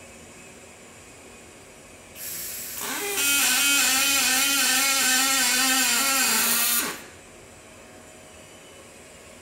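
Robotic MIG welding arc on aluminium radiator stock: a short hiss about two seconds in, then the arc strikes and runs with a loud, steady, pitched buzz for about four seconds before cutting off.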